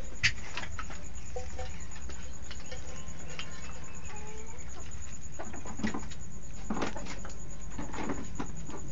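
Turkeys and chickens moving about in a pen: a sharp tap just after the start, then scattered scuffs and rustles in the litter with a few faint short calls, over a steady low rumble.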